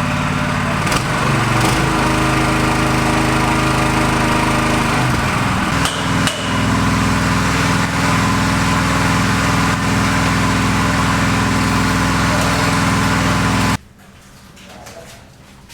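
A small engine running steadily, its pitch shifting about five to six seconds in, with a few sharp knocks over it; it cuts off abruptly near the end.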